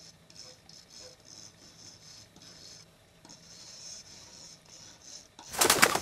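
A loud flurry of bird wings flapping about five and a half seconds in, after a faint, broken high hiss.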